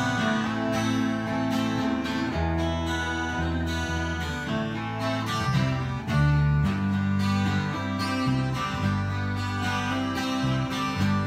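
Acoustic guitar strummed over a bass guitar line, an instrumental stretch of a song, with the bass notes changing every second or so.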